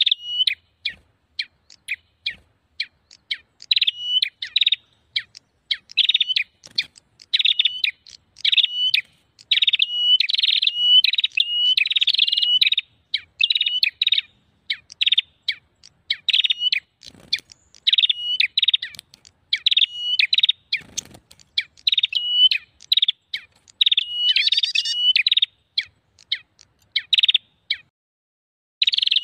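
Prenjak calling rapidly and almost without pause: sharp, high chirps several times a second, many with a quick up-and-down flick, in a busy, excited run. It is a prenjak lure call, the agitated 'ribut' type used to draw wild prenjak in for trapping. There is a brief lull near the end.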